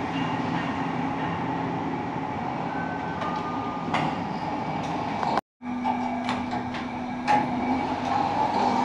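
Steady mechanical hum of a passenger lift. About three seconds in, a two-note falling chime sounds as the lift arrives. After an abrupt cutoff, the lift's sliding doors open with a steady low hum and a few clicks.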